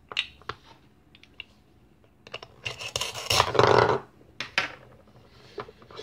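Plastic toy knife clicking against a velcro-joined plastic toy pumpkin, then the velcro ripping apart in a rasping tear lasting about a second and a half, the loudest part, as the halves separate. A few more light plastic clicks follow near the end.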